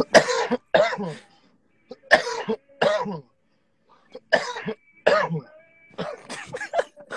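A person coughing repeatedly: short, harsh coughs, mostly in pairs, about seven in all.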